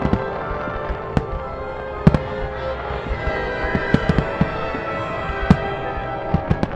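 Aerial firework shells bursting in irregular sharp bangs, the loudest about two seconds in, over a music track of sustained tones played for the pyromusical display.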